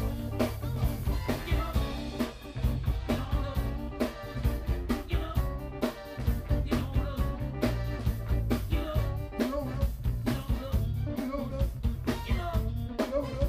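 Live electric blues band playing, with drum kit, electric guitar and a man singing into a microphone over a steady drum beat.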